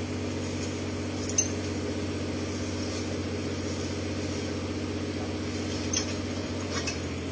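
An engine idling steadily, with two sharp clicks, one about a second and a half in and another about six seconds in.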